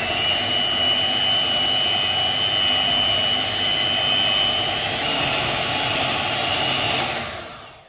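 Electric hand mixer running steadily at speed, its beaters whipping set chocolate ganache into a cream, with a high steady motor whine. The motor winds down and stops about seven seconds in.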